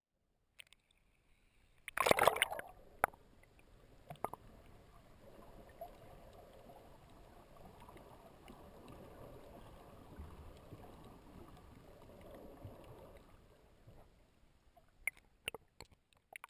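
Muffled water noise picked up by a camera held underwater: a loud rush of water about two seconds in, a few sharp clicks, then a steady low wash, with several sharp clicks and splashes near the end as the camera comes up to the surface.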